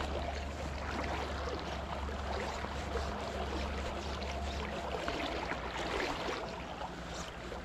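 River current rushing and splashing, with a steady low rumble that stops about five seconds in.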